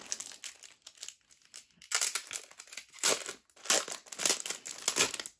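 Clear plastic wrapping on a boxed album crinkling as it is pulled off by hand, in irregular bursts that grow louder about two seconds in.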